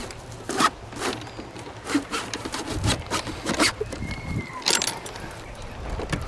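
Irregular knocks and rattles from an HDPE and polycarbonate giraffe puzzle feeder box, a few sharp hits a second at uneven spacing.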